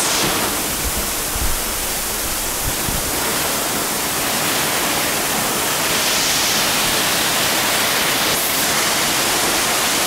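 Waterfall pouring over a sandstone alcove rim and splashing close by, a steady loud rush of water. A few brief low bumps come about a second and three seconds in.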